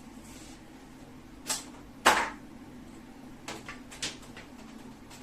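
A few sharp knocks and clicks, the loudest about two seconds in and a quick cluster near the end, from hands handling the microwave and its packaging, over a steady low hum.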